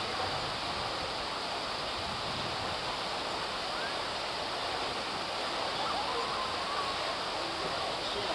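Fountain jets splashing steadily into a large pool, a constant rushing of falling water.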